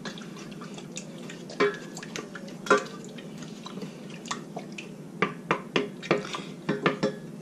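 Wooden spoon stirring water and coconut milk in a metal saucepan: scattered light knocks and scrapes of the spoon against the pan, coming more often near the end.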